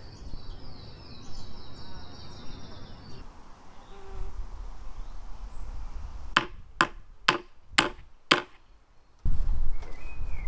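A hammer striking five times, sharp knocks about half a second apart. Before them, for the first few seconds, a high wavering trill runs over faint outdoor background.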